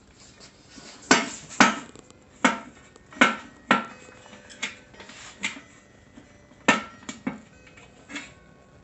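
Metal parts of a portable propane grill knocking and clanking as they are fitted together: about ten sharp clanks at irregular intervals, some ringing briefly.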